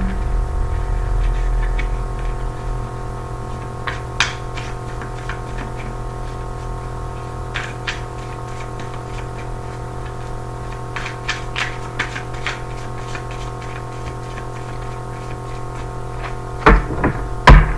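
Steady electrical mains hum, with scattered light clicks and taps of tarot cards being handled and two louder knocks near the end, as cards or the deck are set down on the table.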